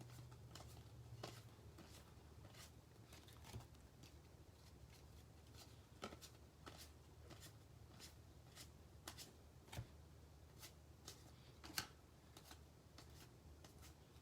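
Faint flicks and soft snaps of baseball trading cards being flipped through by hand, one every second or so, over a low steady hum.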